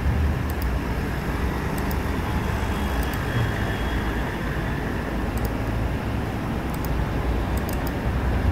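Steady background rumble and hiss, with a few faint high ticks.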